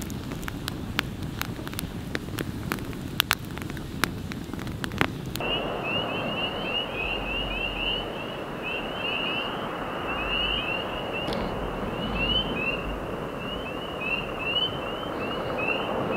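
A wood campfire crackling with sharp pops. About five seconds in this cuts to a dense chorus of frogs peeping, many short, high, rising peeps close together, over a steady background rush.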